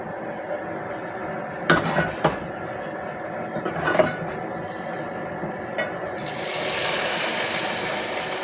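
A metal ladle knocks a few times against an aluminium pot as the chilli gravy is stirred. About six seconds in, a hot oil tempering (baghar) of cumin, mustard seeds and whole red chillies is poured into the gravy and sizzles steadily.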